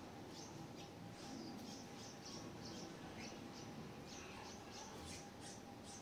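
Nestling birds chirping in the nest: thin, high squeaks repeated a few times a second, in short runs.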